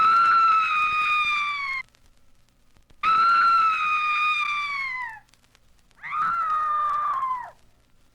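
Three long, high-pitched screams, each held for a second and a half to two seconds and falling in pitch as it trails off, from a Halloween sound-effects record.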